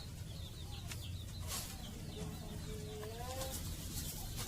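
Chickens clucking quietly, with one drawn-out call that rises in pitch about two seconds in.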